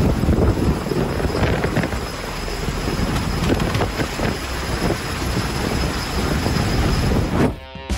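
V-22 Osprey tiltrotor lifting off and flying past at close range: loud rotor and turboshaft engine noise with an uneven rotor thump, loudest at the start. It cuts off suddenly near the end, giving way to guitar music.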